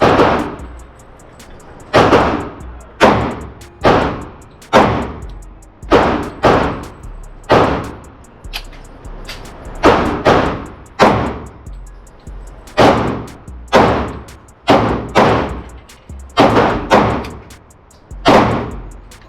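Pistol fired in a long string of single shots, roughly one a second, each sharp report trailing off in a short echo.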